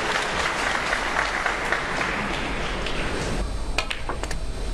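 Snooker audience applauding, the clapping fading out about three and a half seconds in. A few sharp clicks follow near the end.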